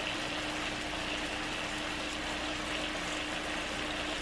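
Skin-on chicken thighs frying in hot oil in a nonstick pan, sizzling steadily, with a faint steady hum underneath.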